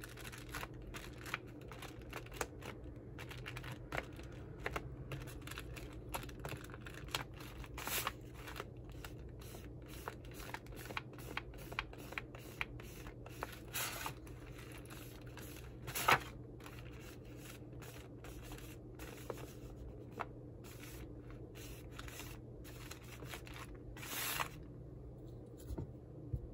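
Kneaded eraser rubbing and dabbing on sketchbook paper to lift pencil lines: irregular soft scratching and scraping with short clicks. A few louder scrapes stand out, the loudest about midway.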